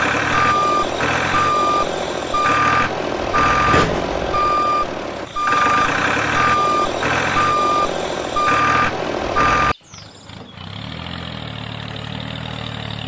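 A vehicle's reversing alarm beeping about twice a second over engine and rumbling noise. Near the end it cuts off suddenly, giving way to a lower, steady engine hum.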